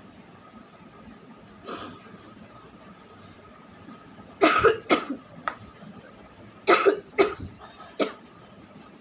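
A person coughing in short, sudden bursts: a soft throat sound about two seconds in, then two loud coughs in quick succession, two more about two seconds later, and a single cough near the end.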